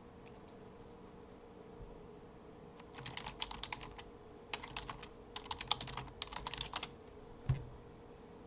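Typing on a computer keyboard: three quick runs of key clicks, then a single low thump near the end, over a faint steady hum.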